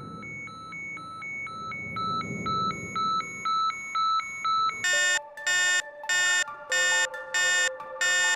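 Electronic beeping: a quick, even run of short beeps, about two or three a second, getting louder. From about five seconds in, louder and fuller beeps come about twice a second over low held notes that step in pitch.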